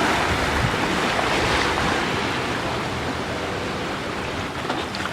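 Ocean surf: waves breaking and washing in as a steady rush of noise that slowly eases off.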